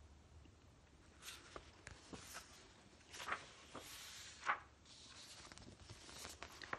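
Faint rustles and a few soft taps as a picture book is handled and its page turned.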